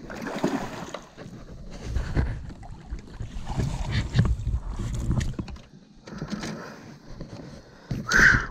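A landed bass splashing in a landing net at the side of a kayak, with wind buffeting the microphone and knocks from the net and the boat. A loud short burst comes near the end.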